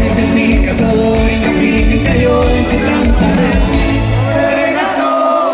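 Latin pop song with singing over a band of bass and drums. About four and a half seconds in, the bass and drums stop, leaving held notes as the song ends.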